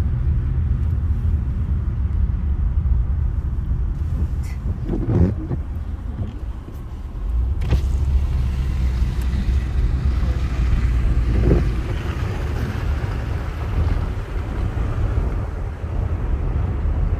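A car driving, heard from inside the cabin: a steady low rumble of engine and tyres on the road, with a few short knocks and a hiss that swells about halfway through.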